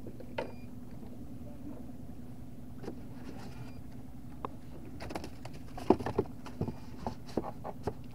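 Boat engine running steadily with a low hum. Several sharp clicks and knocks come in quick succession from about five seconds in.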